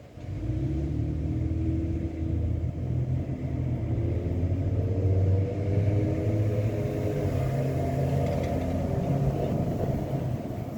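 Low engine rumble with a steady, pitched hum, coming in suddenly about half a second in and holding steady.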